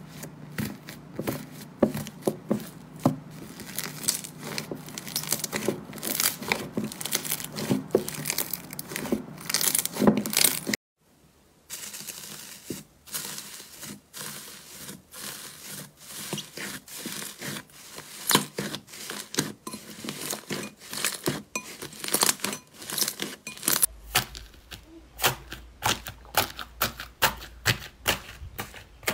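Hands pressing and squeezing slime, making dense crackling and crinkling with many sharp clicks. The sound cuts out briefly about eleven seconds in, then goes on with a slime covered in crinkly purple foil pieces; near the end it changes again to a green slime full of foam beads.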